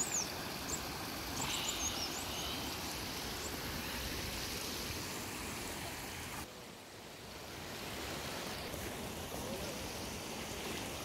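Floodwater running steadily, a steady rushing noise, with a few short bird chirps in the first two seconds. The rushing dips quieter for about a second a little past halfway.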